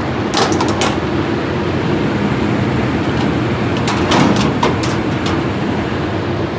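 Industrial dehumidifier running, its fan making a steady loud noise with a hum. Two short runs of sharp clicks or rattles come over it, one just under a second in and another around four to five seconds in.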